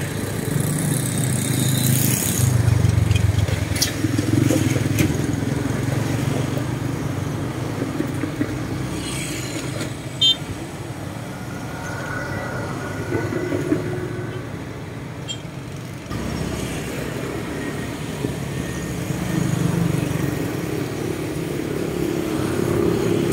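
Low, continuous rumble of road traffic that swells and fades, with a few short clicks.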